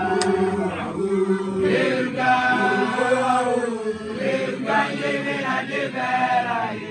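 Group of young Basotho initiates (makoloane) chanting together in unison, several male voices holding long, drawn-out notes that shift slowly in pitch.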